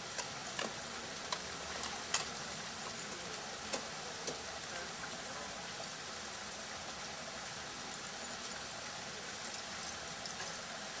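Ice-climbing axes and crampons striking a frozen ice-fall, heard as a few faint sharp clicks over the first four or five seconds. A steady hiss sits underneath.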